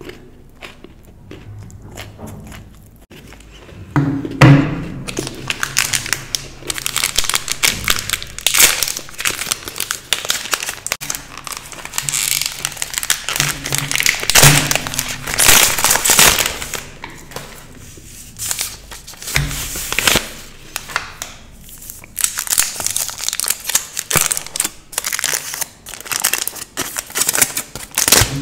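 Chocolate bar wrappers, plastic and foil, crinkling and tearing as they are unwrapped by hand. Fairly quiet for the first few seconds, then loud, irregular crinkling from about four seconds in, coming and going in bursts.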